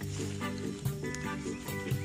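Instrumental background music with held notes and a regular beat.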